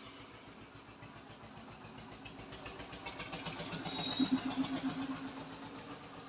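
A motor vehicle's engine running and passing by, growing louder to its peak about four seconds in and then fading.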